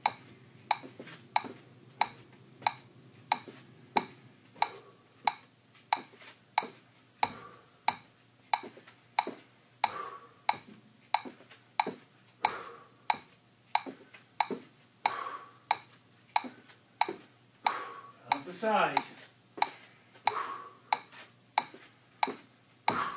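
Metronome clicking a steady beat of about one and a half clicks a second, around 92 beats per minute. Fainter sounds come between the clicks, and a brief sound falls in pitch near the end.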